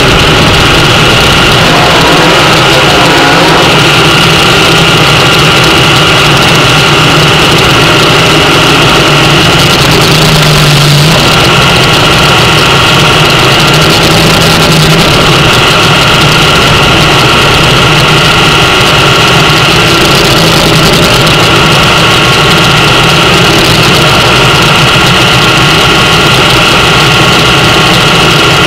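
Nitro-burning A/Fuel dragster engine idling, very loud and steady, close to the on-board microphone.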